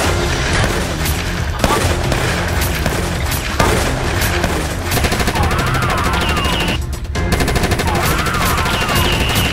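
Rapid gunfire sound effects, a dense rattle of shots, over loud action music. The firing breaks off briefly about seven seconds in.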